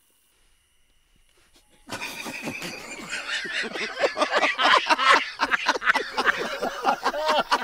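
Near silence for about two seconds, then men burst into loud, hearty laughter, short wheezing whoops that grow stronger as it goes on.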